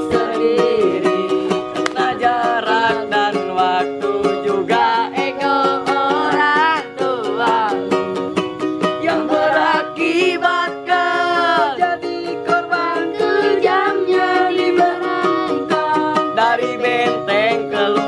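A singer sings a melody over a rhythmically strummed small string instrument.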